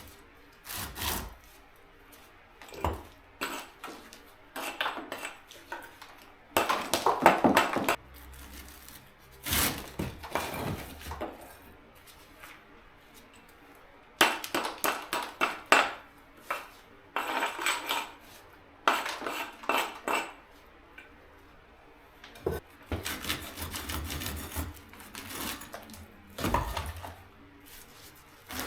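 Bricks and broken mortar clinking and clattering as an old brick oven is dismantled by hand, in irregular bursts of sharp knocks with short pauses between them.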